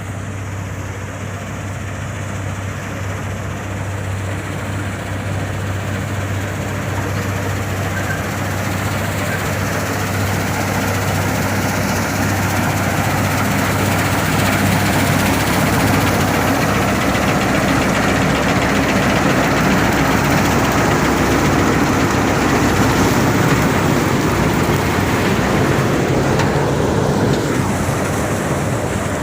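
Wheat harvester running: a steady engine hum under a dense mechanical clatter, growing louder through the first half and then holding steady.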